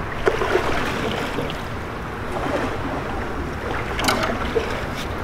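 Creek water rushing around a small boat as it is paddled down a fast current, with paddle splashes and a sharp knock about four seconds in.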